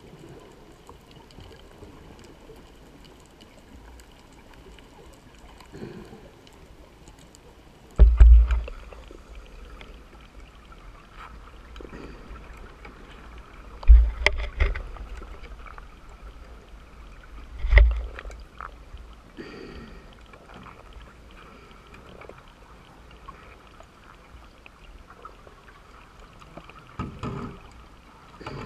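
Scuba diver's regulator underwater: loud bursts of exhaled bubbles a few seconds apart, three in the middle stretch and a smaller one near the end, over a faint gurgling background.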